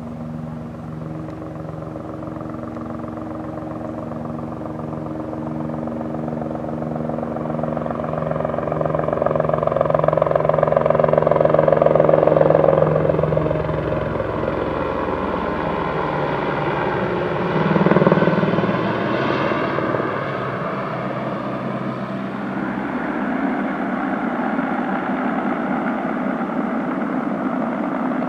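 Aérospatiale AS 350 B Ecureuil helicopter flying with a sling load on a long line: its three-blade rotor and single turbine engine grow louder as it passes close, loudest about twelve seconds in, with a brief surge around eighteen seconds, then settle to a steadier level as it flies off.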